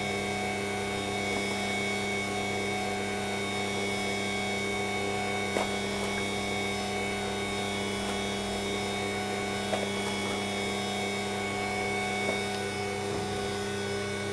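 Steady machine hum with several constant tones, like a motor or fan running, and a few faint taps as flour is scooped from a paper sack into a bowl.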